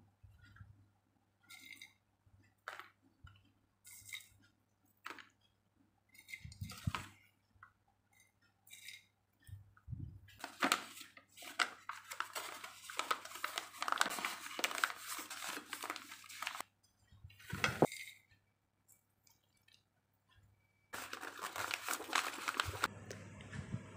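Banana leaf and brown wrapping paper rustling and crinkling as a portion of rice is folded by hand into a parcel, in two long stretches of crackling. Light scattered taps and clinks of plates and a spoon come in between.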